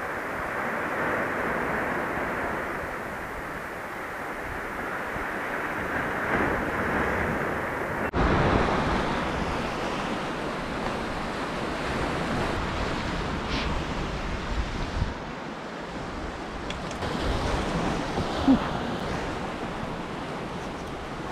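Steady rush of a small sea swell washing onto a rocky shore, with a few faint knocks in the second half.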